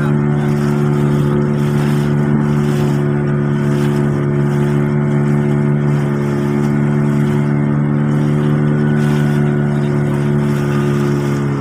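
Boat engine running steadily under way, a constant even drone that holds the same pitch throughout.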